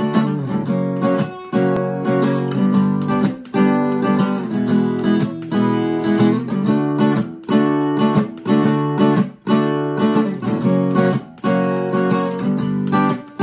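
Acoustic guitar strummed in a steady rhythm, the chords ringing on between strokes, with short damped breaks about every two seconds as the chords change.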